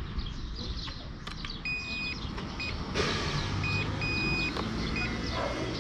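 Riding noise from a Suzuki e-Let's electric scooter: wind and road rumble with a low electric-motor hum that grows stronger about three seconds in. Through it comes a series of high electronic beeps of uneven length.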